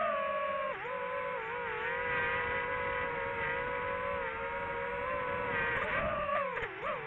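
DJI FPV drone's motors and propellers whining steadily, the pitch dipping briefly about a second in and swinging down and up several times near the end as the throttle changes.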